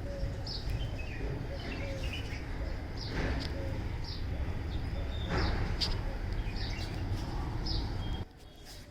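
Birds chirping in short high chirps, roughly one a second, over a steady low rumble that drops away suddenly near the end.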